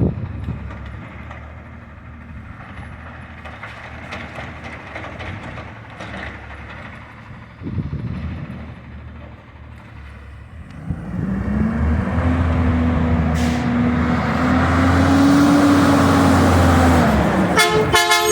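Truck engine running at low revs, then revving up about eleven seconds in, held high for several seconds and dropping back. A short horn blast follows near the end.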